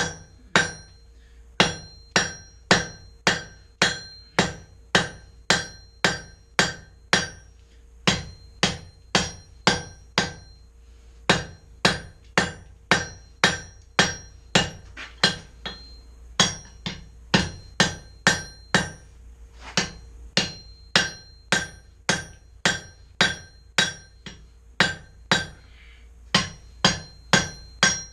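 Hammer blows on hot steel bar over an anvil, about two strikes a second in runs with brief pauses, each blow ringing. This is the drawing-out of a 3/4-inch round bar, tapering it into the point of an axe eye drift.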